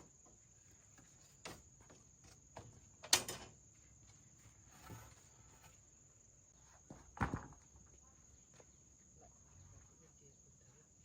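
A few sharp, separate chopping knocks, irregularly spaced about two seconds apart, with the loudest about three seconds in. They sound like a blade striking wood, heard over a steady high-pitched drone of crickets or other insects.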